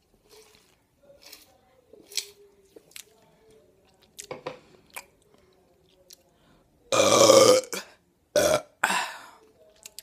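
A woman burps after drinking carbonated Pepsi through a straw: faint sips and small clicks at first, then a long, loud burp about seven seconds in, followed quickly by two shorter burps.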